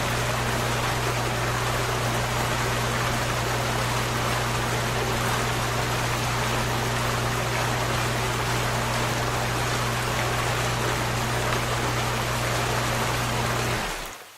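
Water running in a steady, even rush with a steady low hum underneath. It stops near the end, leaving a short fading tail.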